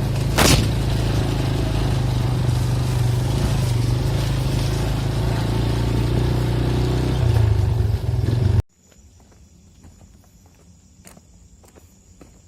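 An engine running steadily, with a short loud noise about half a second in. It cuts off abruptly about two-thirds of the way through, leaving faint clicks and rustling.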